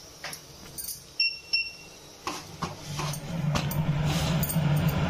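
Paratha being pressed and turned by hand on a hot iron tawa: scattered light clicks and taps, with two short high pings about a second in. In the second half a low steady hum with a soft hiss builds up.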